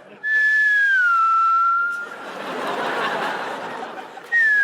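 A high whistle that glides down in pitch and then holds, the comic stand-in for a sleeper's nose whistling after septum surgery, with audience laughter after it and a second falling whistle starting near the end.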